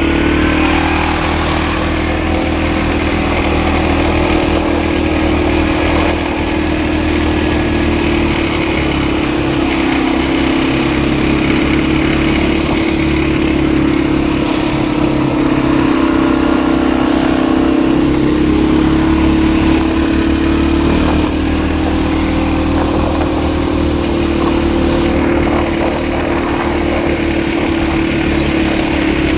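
ATV engine running steadily under way, its pitch easing down a little a few times and coming back up as the throttle changes.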